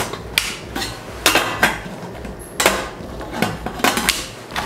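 Locking lid of a stainless steel Premier pressure cooker being worked by hand: a series of sharp, irregular metallic clicks and clacks, some ringing briefly.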